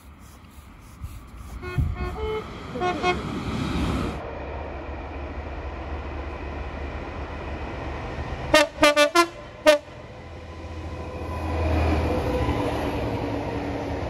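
A Thameslink Class 700 electric train sounds a five-tone horn sequence of quick short toots. Then a Class 66 diesel freight locomotive sounds five short, loud horn blasts about eight and a half seconds in, followed by the rising rumble of its diesel engine as it draws near.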